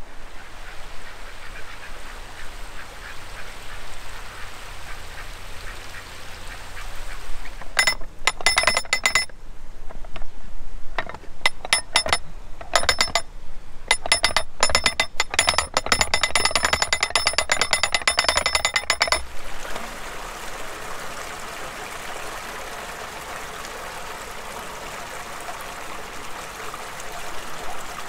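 Lock paddle gear being wound up with a windlass: the pawl clicks rapidly on the metal ratchet in spells for about ten seconds, each click ringing. A steady rushing noise follows once the winding stops.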